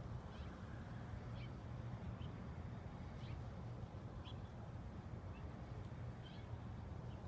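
Outdoor ambience: a steady low rumble with faint, short high chirps every half second to a second.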